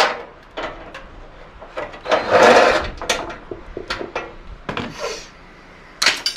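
Clattering and scraping of a gas wall heater's sheet-metal casing and parts being handled and pried apart with hand tools. There is a longer scrape a couple of seconds in and a few sharp knocks near the end.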